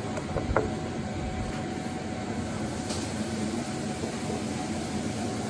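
Steady low rumbling background noise of a small restaurant with a faint steady hum, and a single light clink about half a second in.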